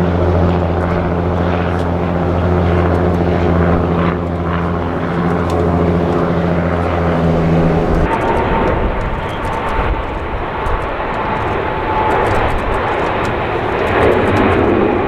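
Airbus A350-900's Rolls-Royce Trent XWB engines climbing out after takeoff, a steady low drone. About eight seconds in it cuts to a Boeing 777's jet engines at takeoff thrust on the takeoff roll: a rushing roar with a faint steady whine.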